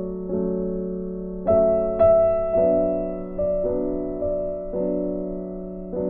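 Soft background piano music: a slow melody of single notes struck every half second to a second over sustained tones.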